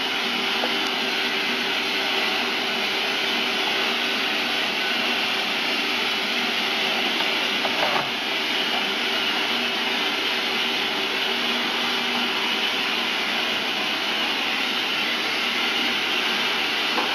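Steady mechanical whirring from a running motor, with a low hum under it and a short knock about eight seconds in.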